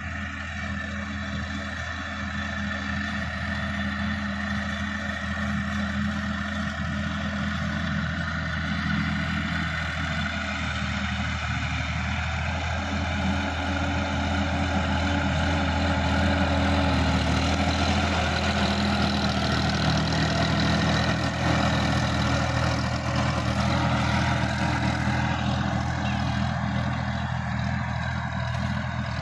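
Sonalika DI-50 RX tractor's diesel engine running steadily under load while tilling the soil. It grows louder as the tractor comes close and eases off a little near the end as it moves away.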